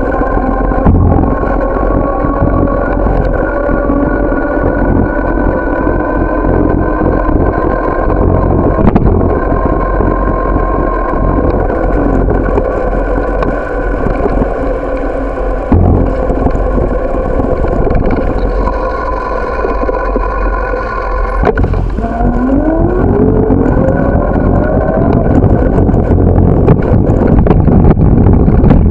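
Ride noise from a moving bicycle: a steady rumble of wind and road on the microphone, with a mechanical whine running through it. About three quarters of the way through, the whine drops and then rises steadily in pitch.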